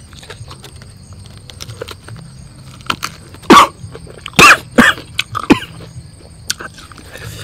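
A man chewing with small crunching clicks, then coughing four short, loud times in quick succession a little past halfway.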